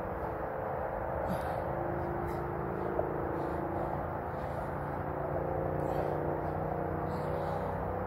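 Steady low background rumble with faint, slowly drifting hum tones and no distinct events.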